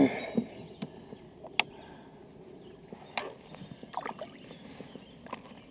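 Scattered sharp knocks and taps on a kayak, a second or so apart, as a freshly landed redfish flops and is handled aboard.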